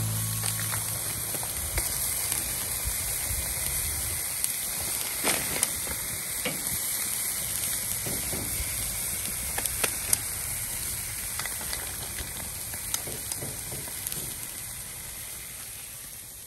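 Chopped skirt steak sizzling over a charcoal grill, a steady hiss with scattered crackles and pops that gradually fades.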